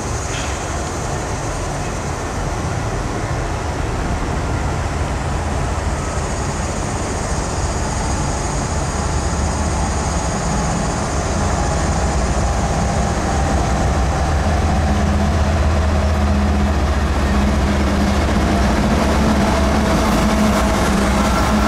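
Diesel locomotives of a CSX freight train approaching and passing: a steady low engine drone over rail rumble, growing louder as the engines come alongside in the last few seconds.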